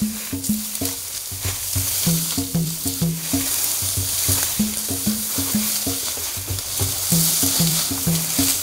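Dry tall grass rustling and crackling as people push through it on foot, over background music with a repeating pattern of low notes. The rustling cuts off suddenly near the end.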